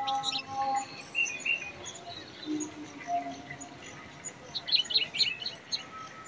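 Small birds chirping in short high calls, with a quick run of rapid chirps about five seconds in. A held music tone fades out within the first second.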